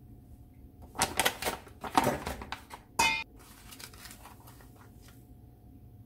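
Kitchen handling sounds: crinkling and rustling as a foil yeast sachet is handled and opened. About three seconds in comes one sharp metallic clink with a brief ring as steel kitchenware knocks together, then a few light taps.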